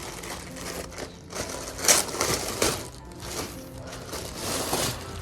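Crinkly packaging rustling and crinkling in bursts as a parcel is unwrapped, with a few sharper crackles.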